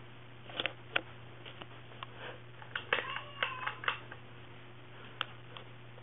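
Ceiling fan with a light kit running with a steady low hum and scattered light clicks; a cat meows briefly about three seconds in.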